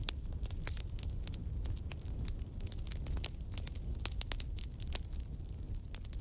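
Wood fire burning in a fireplace, crackling with many sharp, irregular pops over a low, steady rumble.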